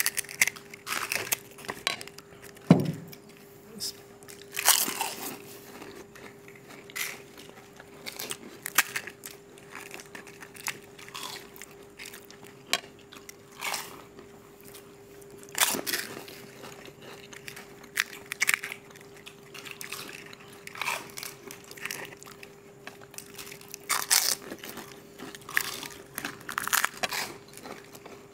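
Several people crunching and biting into crisp, hollow fried pani puri shells dipped in spiced water, eating fast. The crunches come irregularly, one after another, over a faint steady hum.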